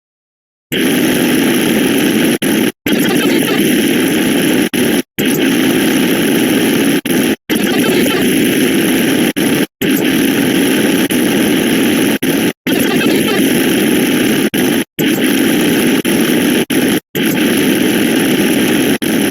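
A dense, loud jumble of many overlapping sound effects that blurs into a steady noisy din, with short silent cut-outs about every two seconds.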